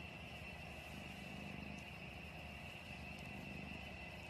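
Cat purring: a low, steady rumble that swells and eases in cycles of about a second.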